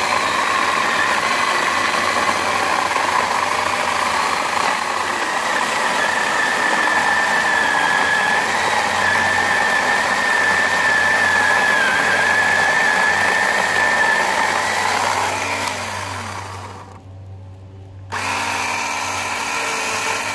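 Scotts 24-volt cordless electric chainsaw with a 12-inch Oregon bar and chain cutting through a 9-inch oak log, its motor whine holding steady under load without struggling. About 16 seconds in the motor winds down to a stop, then after a short pause it spins up again briefly with no load and winds down near the end.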